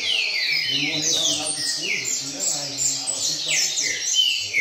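Double-collared seedeater (coleiro) singing its 'chuva' song: rapid, continuous runs of high, quick notes that slide downward, one after another.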